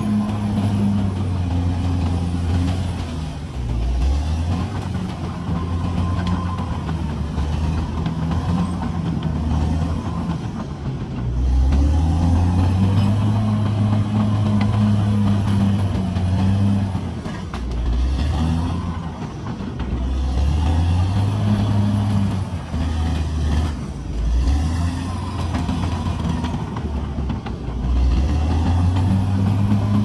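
CAT D6R bulldozer's diesel engine running under changing load, its note dropping and picking up again every few seconds.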